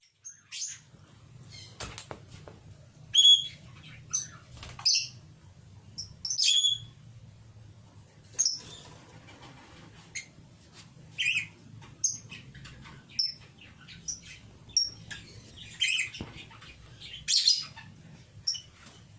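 Lovebirds chirping: short, sharp, high-pitched calls at irregular intervals, roughly one a second.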